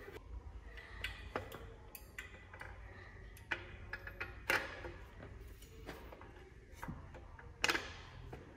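Scattered light metal clicks and knocks as a piston held in a piston ring compressor is handled and set onto a cylinder bore of a Honda D16 engine block, with two sharper knocks about four and a half seconds in and near the end.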